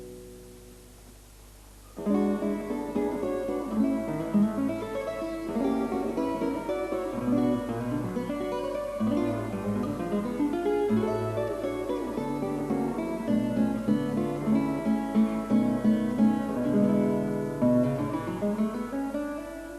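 Acoustic guitar music: a chord dies away, then about two seconds in a lively plucked and strummed tune with a bass line starts and runs on.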